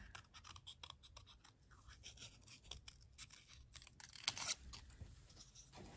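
Small scissors cutting around a paper cutout: faint, quick snips and paper rustles, with a louder snip about four seconds in.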